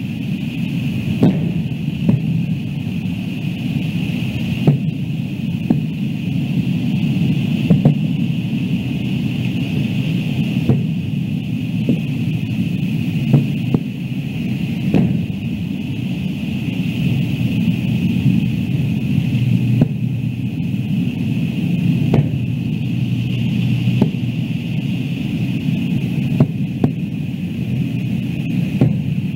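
Aerial fireworks shells bursting: sharp booms at irregular intervals of one to several seconds, over a steady low rumble and a thin steady hiss.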